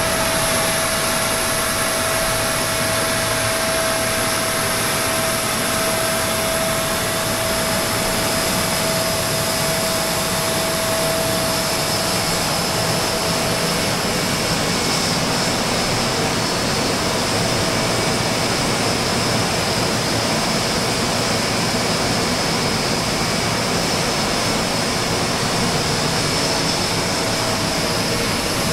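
A jet turbine running steadily on the ramp: an even rushing noise with a high whine held on a few steady pitches, one note fading about halfway through while a higher one grows stronger.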